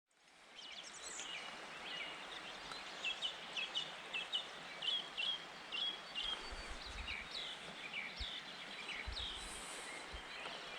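Birds chirping, many short quick notes repeated in a loose chorus, over a steady background hiss of outdoor noise; it fades in at the start, and a few low rumbles come in around the middle.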